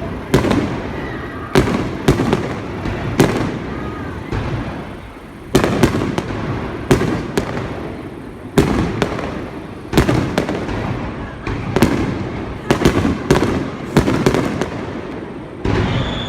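Fireworks display: aerial shells bursting in a rapid series of loud bangs, each trailing off in a rolling echo. There is a short lull about four to five seconds in.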